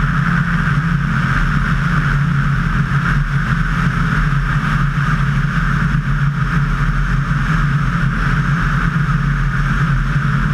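Light aircraft's engine and propeller running steadily in level flight, heard from a camera mounted outside the fuselage: an even, unchanging drone with a low hum and a strong hiss of rushing air and propeller noise above it.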